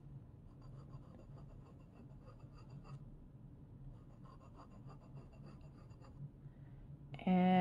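Glass dip pen nib scratching softly over watercolor paper as it draws continuous wavy lines. Just before the end, a loud hummed note begins.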